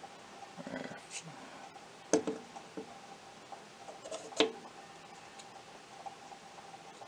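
Two sharp clicks about two seconds apart: a metal caliper jaw knocking down onto the wooden tabletop while measuring small grip-safety parts. Faint handling rustle comes before them, over a faint steady hum.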